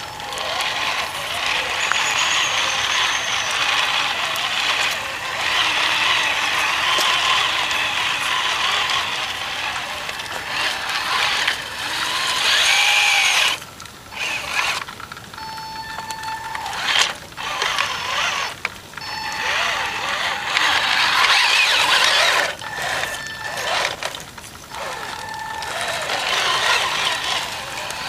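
Tamiya CC-01 radio-controlled truck's electric motor and GD-600 2.5:1 reduction gearbox whirring and whining as it drives over dry leaves. It stops and starts several times in the second half, with a short steady whine each time it moves off slowly.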